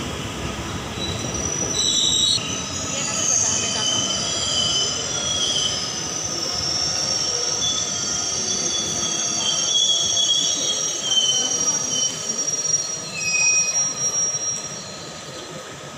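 Indian Railways passenger coaches rolling along the platform, their wheels squealing on the rails in high, thin tones that come and go over the rumble of the train. The sound drops away near the end.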